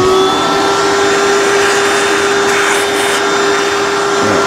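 Shop vacuum running with a steady whine over a rushing hiss, cleaning metal chips off the milling vise and part.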